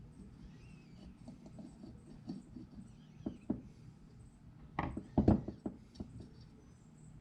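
Light clicks and taps of small carburetor parts being handled on a workbench, with a short burst of sharper metal clatter about five seconds in.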